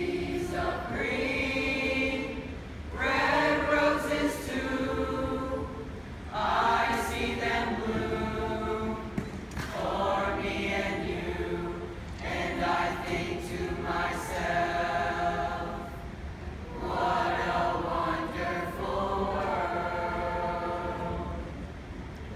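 An eighth-grade mixed chorus of boys and girls singing together in held chords, phrase after phrase every two to three seconds.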